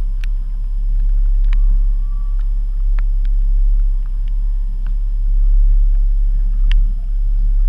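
Steady low rumble aboard a small fishing boat, with a handful of sharp knocks and clicks from gear being handled, the loudest a little before the end.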